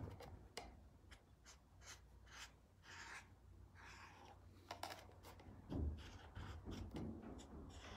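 A black marker drawing on a cardboard box in a series of faint, short scratchy strokes, with a soft low knock about six seconds in.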